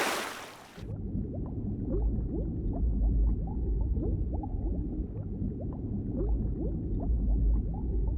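A splash as someone jumps into water, then a muffled underwater bubbling and gurgling, low and steady with many small rising bubble blips.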